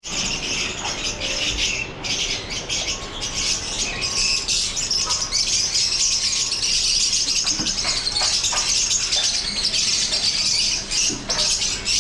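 Many small birds chirping and chattering at once, a dense high twittering that never lets up.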